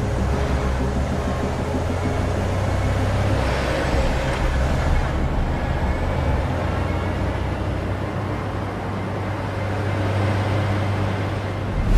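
Low, steady vehicle engine rumble with road noise.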